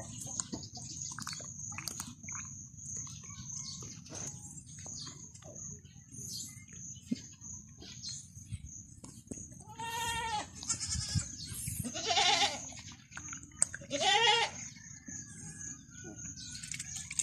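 Young goat kid bleating three times in the second half, the middle bleat loudest, after small clicks and handling noise from bottle-feeding. A steady thin high-pitched tone runs underneath.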